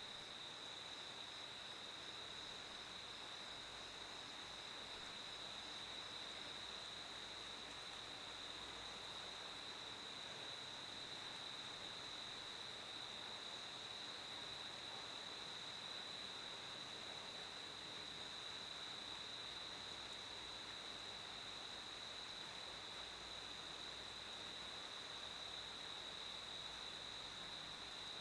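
Crickets chirping in one continuous high-pitched trill over a faint hiss, with a second, fainter pulsing chirp just above it that fades out before the halfway point.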